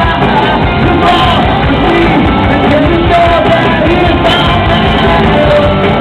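Rock band playing live: electric guitars, bass and drums under a sung lead vocal, loud and dense throughout.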